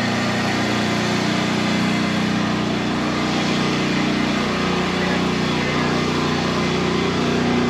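A small engine running steadily, its pitch shifting slightly a couple of times.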